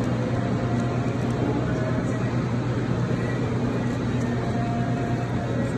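Steady low hum of restaurant room noise, with no distinct events.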